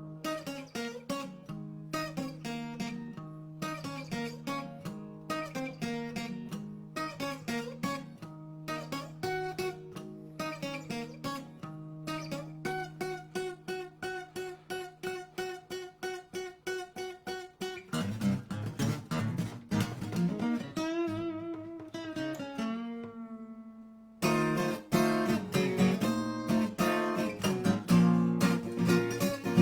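Solo guitar playing a song's instrumental introduction: single picked notes over a held bass note, turning to louder strummed chords about eighteen seconds in. A chord is left ringing for a moment, then the strumming resumes more strongly near the end.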